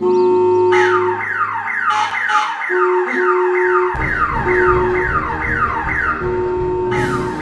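Police car siren wailing in rapid falling sweeps, about two and a half a second, over held musical tones. A low rumble joins about four seconds in.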